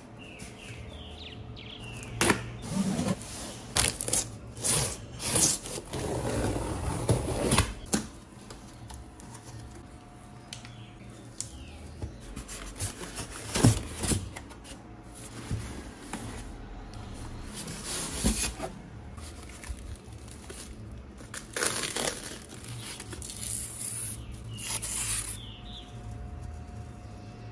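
Monitor packaging being handled: cardboard and plastic rustling and scraping, with scattered knocks at irregular moments.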